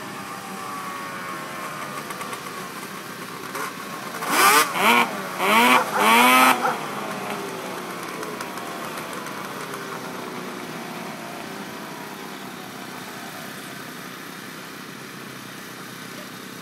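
Snowmobile engines on an ice drag strip. A sled's engine drone falls in pitch as it fades off down the track. About four seconds in come three loud, quick revs, and then a second engine's drone trails away with slowly falling pitch.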